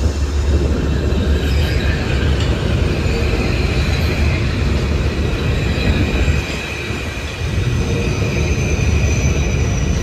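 Metro-North M8 electric multiple-unit train running past on the elevated track, a steady rumble of wheels on rail with a thin, high, steady tone that sets in about a second and a half in. Strong wind buffets the microphone underneath.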